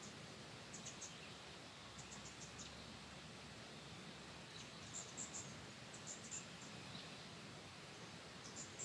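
Insect chirping: short, very high chirps in quick groups of three or four, coming every one to three seconds over a faint steady hiss.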